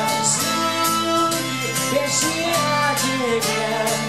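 Acoustic guitar strummed steadily while a harmonica plays held, bending melody notes over it, an instrumental break between sung lines of the song.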